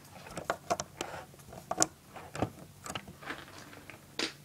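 Handling noise: irregular light clicks and taps, about a dozen, as the camera is held and moved close-up. The loudest come a little before two seconds in and about four seconds in.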